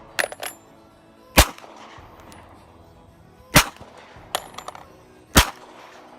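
Three sharp gunshots about two seconds apart, with fainter metallic pings between them like steel targets ringing from hits.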